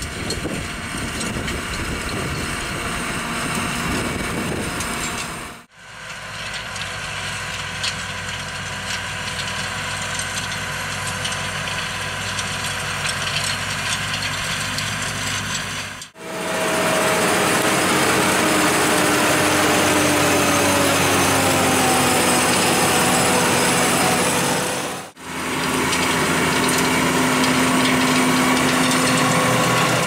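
New Holland tractor diesel engine running, heard through several clips cut one after another. In the loudest clip, from about 16 to 25 seconds in, the engine's pitch falls slowly.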